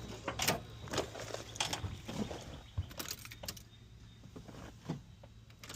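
Light, irregular metallic clicks and clinks of hand tools on a car battery terminal as the battery is disconnected.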